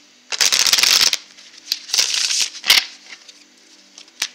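Tarot cards sliding and rubbing against each other as a hand gathers them up from the table: two rustling swishes, the first about half a second in and the second about two seconds in, with a few sharp card clicks.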